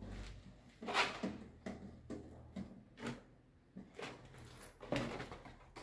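Sharp plastic clicks and knocks of circuit breakers being handled and fitted, a loud click about a second in and lighter ones later.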